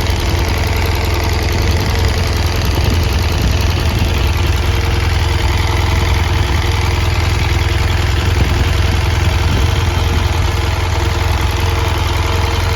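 BMW R1200GS boxer twin idling steadily from a cold start, with a ticking from both cylinders that the owner wonders may be a rocker-arm problem.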